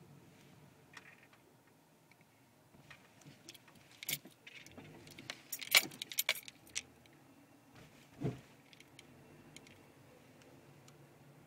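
Faint low hum of a car driving slowly, heard from inside the cabin. About four seconds in comes a burst of light metallic jingling and clicking lasting a few seconds, then one dull thump shortly after.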